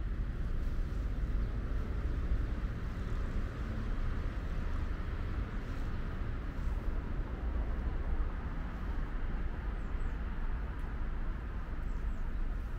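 Steady low rumble of distant city traffic, with a couple of faint high bird chirps near the end.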